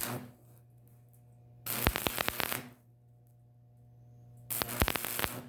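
Arc welder laying short welds on thin, rusted sheet metal: two bursts of crackling and sputtering about a second long, with the tail of another just at the start, kept short so the thin metal doesn't melt through. A steady low hum runs underneath.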